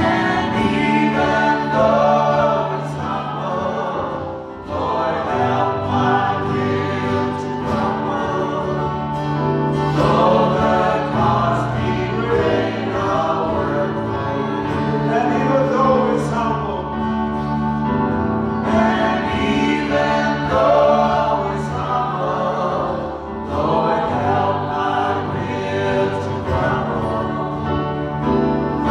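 Congregational worship song: singers over instrumental accompaniment, a gospel-style hymn.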